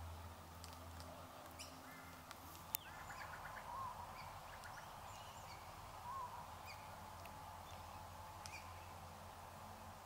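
Glossy black cockatoos feeding in a she-oak, with scattered sharp clicks and snaps as they crack the cones in their bills, the loudest a bit under three seconds in. Faint short bird chirps and a quick run of twittering notes sound over a steady background hiss.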